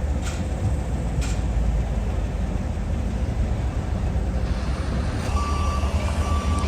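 Diesel engine of a JCB backhoe loader running with a low rumble, with two short knocks in the first second and a half. About five seconds in, the engine grows louder and a reversing alarm starts beeping at an even pace, a little over one beep a second.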